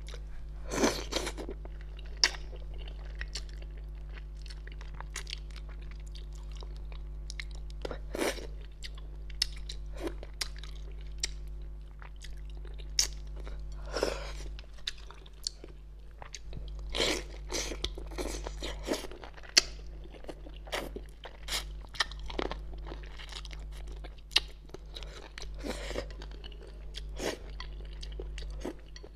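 Close-miked chewing and mouth sounds of someone eating spicy fish head: irregular wet smacks and clicks, a few much sharper than the rest, over a steady low hum.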